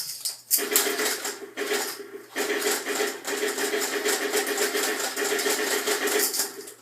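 Toy machine gun's electronic firing sound played through its small speaker: a fast, loud stutter of rapid-fire shots in two long bursts, with a brief gap a couple of seconds in.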